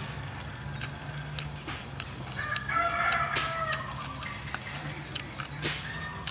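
A rooster crows once, about two and a half seconds in, a call of about a second, with scattered light clicks around it.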